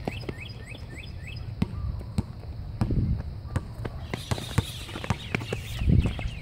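Basketball bouncing on an outdoor hard court as it is dribbled, a sharp bounce about every half second. A bird chirps a quick run of short rising notes near the start.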